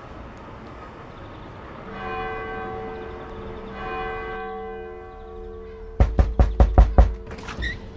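A church bell strikes twice, each stroke ringing on and fading. Then comes a quick run of about seven loud knocks on a door.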